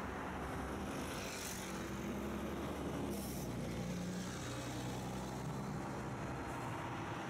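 Road traffic: a large vehicle passing close by with a steady low engine hum over the general road noise, and a short hiss about three seconds in.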